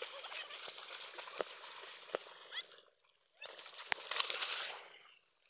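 Water splashing and sloshing as people thrash through shallow water, with a few sharp slaps; a brighter, hissier splash comes about four seconds in.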